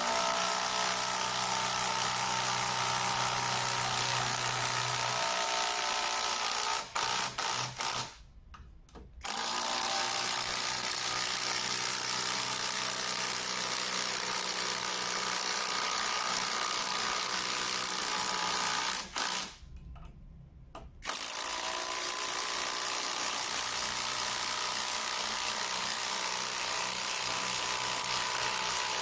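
SfunPro 16V cordless impact driver hammering a large screw into a hardwood log. It runs in three long stretches, with two brief pauses.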